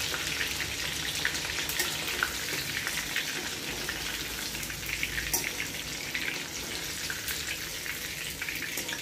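Chicken lollipops deep-frying in hot oil in a kadhai: a steady crackling sizzle, with a sharper click about five seconds in as the pieces are lifted out with a wire skimmer.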